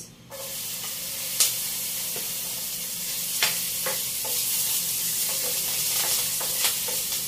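Chopped ginger sizzling in hot oil in a stainless steel pan, the hiss starting suddenly as it goes in, just after the start. A metal spatula stirring it knocks sharply against the pan a few times, loudest about a second and a half in.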